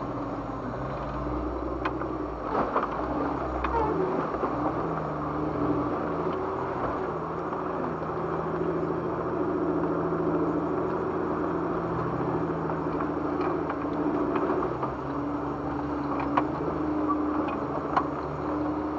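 Jeep Wrangler engine running at low revs while crawling over a rocky trail, heard from inside the cab; its pitch steps up and down several times as the throttle changes. Scattered sharp clicks and knocks are heard over it.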